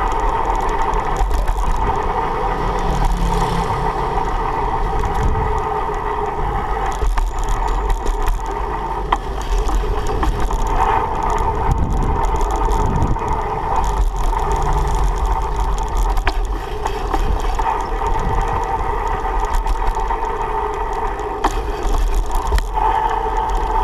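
Steady ride noise from a GoPro mounted on a BMX bike rolling along a paved street: a constant low rumble of wind and road, with small rattles and knocks from the bike.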